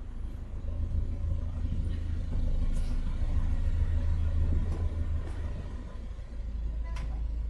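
Narrowboat engine running steadily with a low rumble that swells for a few seconds in the middle, with a couple of faint clicks over it.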